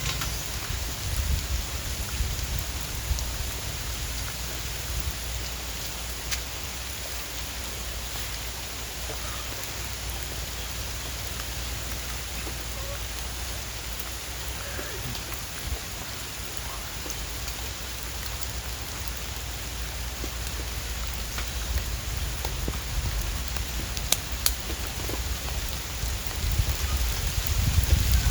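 Steady rain falling, a continuous even hiss with a low rumble underneath and a few sharper drop ticks.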